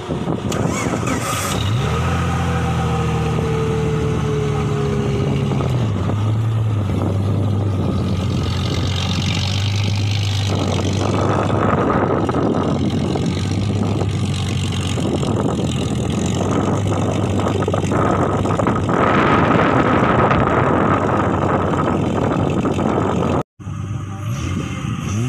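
Off-road buggy's engine revving, its note rising sharply about a second and a half in, holding, then dropping around six seconds. It keeps running as the buggy drives off over dirt, harsher and louder from about eleven seconds, loudest near twenty seconds, then cuts off abruptly near the end.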